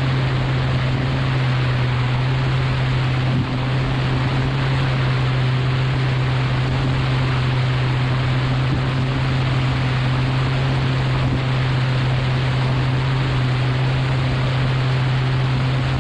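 A steady machine drone: a constant low hum under a loud, even rushing noise that does not change.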